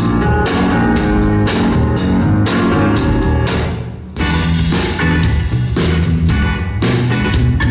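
A song with heavy bass and a steady drum beat, played loud through a Philips MMS 6060F 2.1 speaker system with subwoofer. The music dips briefly about four seconds in, then comes straight back.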